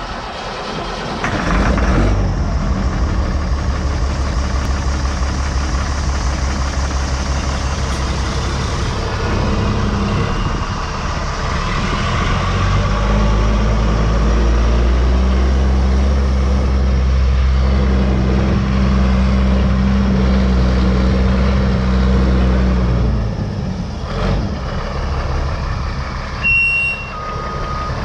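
Diesel engine of a 2001 Sterling Acterra service truck running steadily, louder through the middle, then dropping away about five seconds before the end. Near the end a backup alarm starts beeping.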